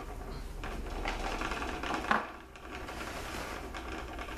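Paper towel rubbing and scraping inside a small plastic cup as it is wiped out, a quick scratchy rustle with a sharper scrape about two seconds in.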